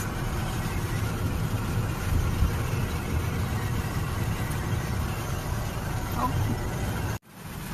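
Car engine running, heard from inside the cabin as a steady low rumble; it cuts off suddenly near the end.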